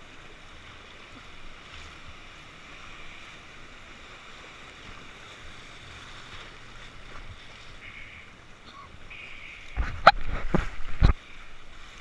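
Steady rush of whitewater rapids heard from an inflatable raft. Near the end comes a burst of loud knocks and thumps lasting about a second.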